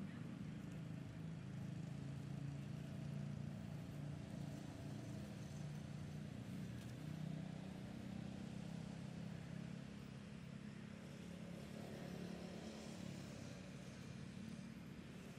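Steady low rumble of an engine running.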